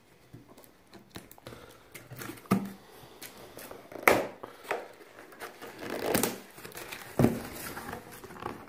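A cardboard box with packing tape being handled and opened by hand: rustling and scraping of cardboard, with several sharp knocks and taps of the box.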